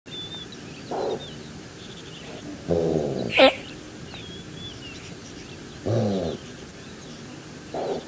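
Gazelle calling: four short, nasal bleats spaced a few seconds apart, each falling slightly in pitch, with a brief sharp high squeak a little after three seconds. Small birds chirp faintly in the background.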